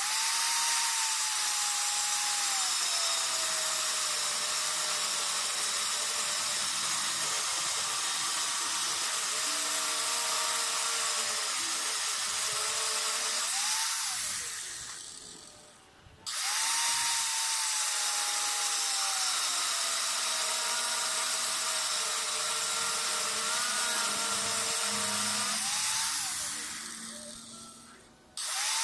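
Electric angle grinder working steel: its motor whine sags in pitch under load over a harsh grinding noise. It is switched off about 14 seconds in and winds down, then starts again, runs for another stretch and winds down, and starts once more at the very end.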